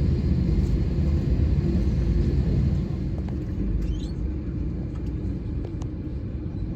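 Steady low rumble in the cabin of an Airbus A320neo on the ground, with a few faint clicks; the rumble drops a little in level about three seconds in.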